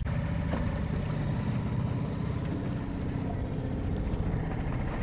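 Boat motor running steadily as the boat moves along, a low, even hum.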